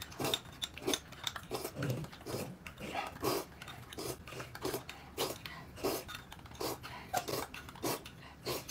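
Someone eating: short, irregular chewing and lip-smacking sounds mixed with light clinks of tableware, two or three a second.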